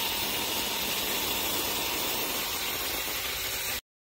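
Angle grinder with a cut-off wheel cutting steel around the welded joint of a truck axle spindle, a steady grinding hiss with a high whine over it, to free the spindle from the axle housing. It cuts off suddenly near the end.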